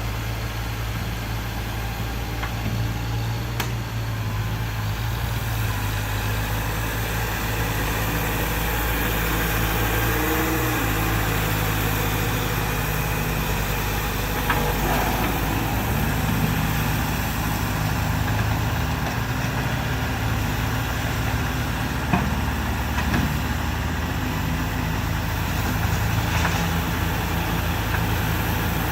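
Mini bulldozer's engine running steadily as it works dirt, with a few faint knocks over it.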